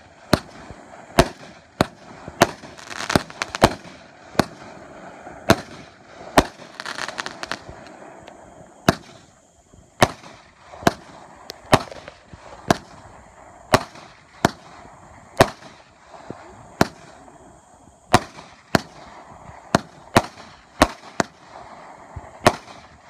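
Aerial firework cake firing shot after shot: a steady string of sharp bangs about one a second, with a hiss between some of them.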